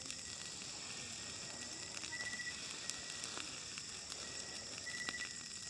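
Steady high-pitched chorus of night insects, with a thin tone that swells briefly a few times and a few faint scattered clicks.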